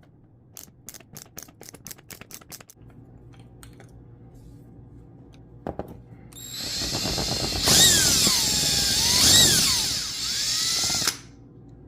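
A power drill runs for about five seconds in the second half, its motor pitch dipping and rising as it works. A quick run of light clicks comes first.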